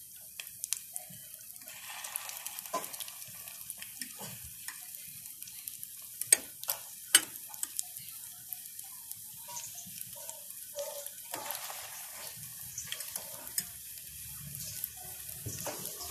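Battered banana cheese balls deep-frying in a pan of hot oil, sizzling and crackling steadily, with a few sharp clicks about six and seven seconds in.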